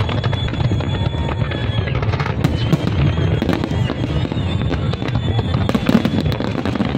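Dense fireworks barrage: many shells bursting in quick succession, a continuous booming rumble with sharp cracks throughout.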